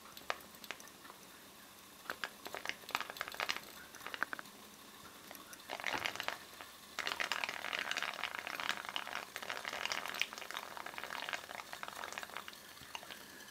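Wine boiling in a miniature still, a crackling, spitting bubbling. It starts as scattered pops, comes in a short thick burst about six seconds in, and runs as dense crackling from about seven seconds until it thins out near the end.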